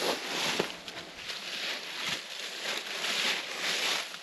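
Footsteps scuffing and crunching through dry leaves and over rock in uneven steps while scrambling down a steep, slick slope, with a couple of sharp knocks in the first second.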